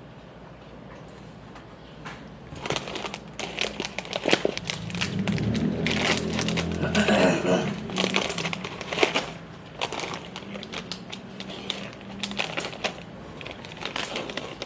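Runs of quick clicks, as of typing on a computer keyboard, starting about two seconds in. A louder stretch of rustling and handling noise comes in the middle.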